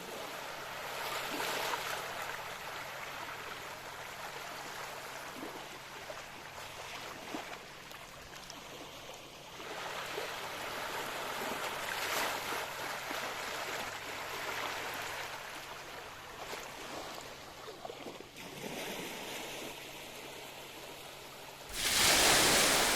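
Sea water washing against a breakwater, a steady rush that swells and fades every few seconds, with a louder rush of noise for about a second and a half near the end.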